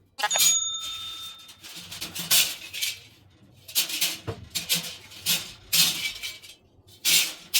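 A run of light metal-on-metal hammer blows, about a dozen separate clinking hits at an uneven pace of roughly two a second; the first leaves a brief ringing tone.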